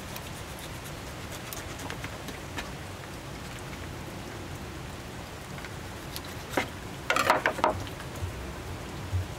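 Steady rain falling, with scattered drip clicks. About seven seconds in comes a short, louder clatter of knocks and rustling.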